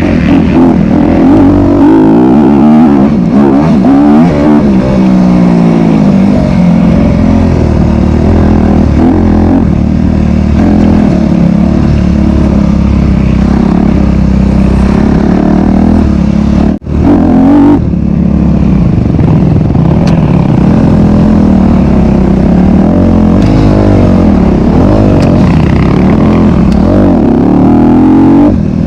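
Honda CRF250RX dirt bike's single-cylinder four-stroke engine revving up and down continuously under hard riding, with a momentary break about seventeen seconds in.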